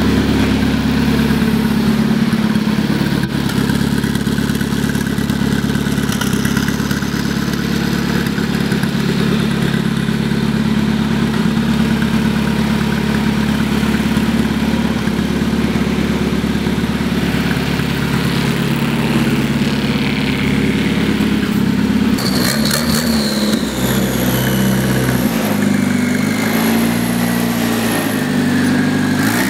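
Souped-up tractor engine running steadily, then revved up and down repeatedly in the last seven seconds or so, with a high whistle falling in pitch as the revs drop.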